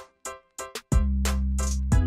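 Background music with a beat: sharp drum hits over a deep bass line that comes in about halfway through.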